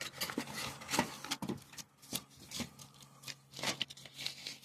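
Irregular clicks and rustles of small parts being handled, over a faint steady low hum.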